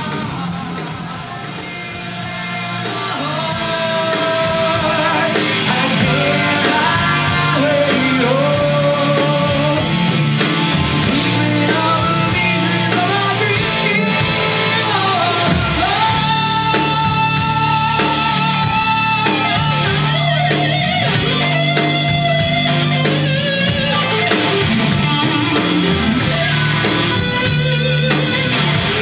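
Live hard rock band playing: distorted electric guitar, bass guitar and drums, with a lead line of bent and held notes. The band is quieter for the first couple of seconds, then builds up to full volume.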